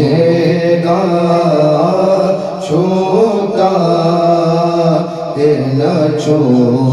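Men's voices chanting a devotional Urdu naat through microphones, in long, drawn-out, wavering notes with short pauses for breath.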